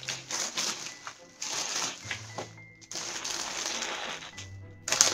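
A clear plastic bag crinkling and rustling in irregular bursts as hands pull it open and work it off a bare-root rose.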